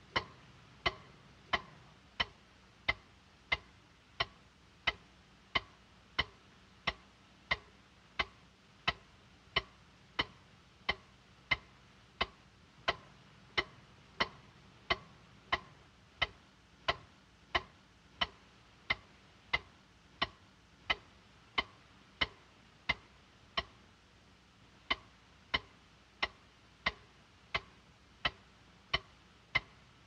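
Cartoon cuckoo clock ticking steadily, about three ticks every two seconds.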